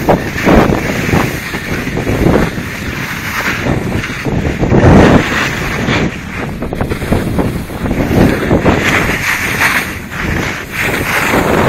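Wind buffeting a cell phone's microphone during a snowblade descent, surging and easing, over the hiss and scrape of the short skis on the snow.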